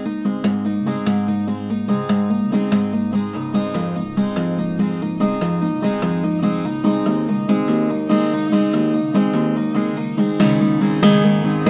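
Acoustic guitar playing an instrumental passage in a steady, quick picking and strumming pattern, with no singing. It grows louder and fuller about ten seconds in.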